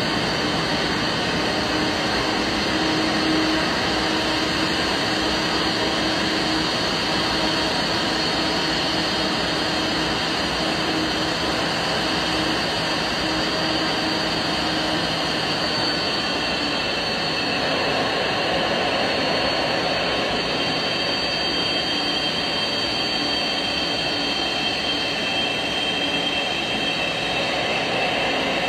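Boeing 787-9's twin jet engines running at taxi idle, a steady roar and whine as the airliner taxis in. The high whine grows stronger in the second half as the aircraft turns nose-on and comes closer.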